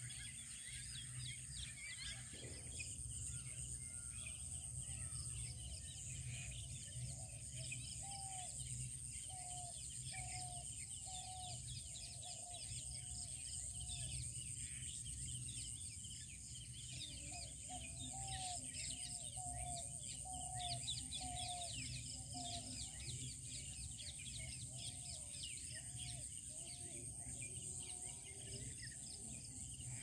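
Morning bird chorus of many fast high chirps over a steady high-pitched drone. Twice, a bird gives a run of lower repeated calls, each note rising and falling, a little more than one a second for several seconds.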